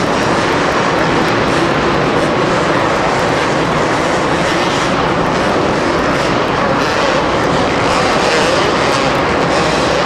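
Two-stroke supercross motorcycles running hard on the track, a loud continuous engine buzz with no let-up.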